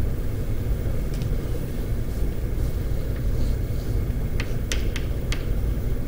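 Steady low room rumble, with a few sharp chalk taps clicking against a blackboard in the second half as writing begins.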